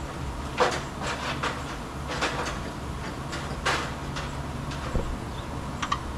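Repair work on a round baler's frame, with a few short knocks and scrapes of a tool against the metal and a couple of sharp clicks near the end, over a steady low hum.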